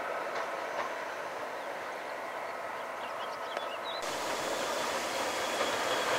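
Diesel-hauled train running along the line at a distance with a steady engine rumble. About four seconds in the sound cuts to a second diesel locomotive approaching, louder and building, with a steady high whine over its engine.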